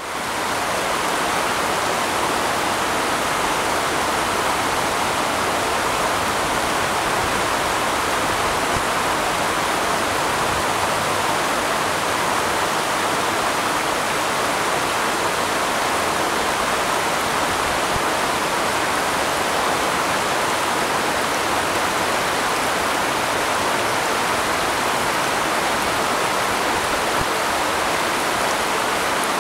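Steady rush of flowing water, fading in at the start and then holding even.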